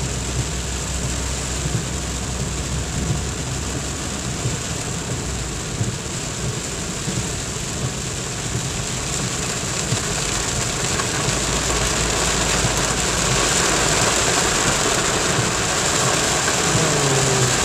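Heavy rain pelting a car's roof and windscreen, heard from inside the cabin over the car engine's low hum. The rain grows louder about ten to fourteen seconds in.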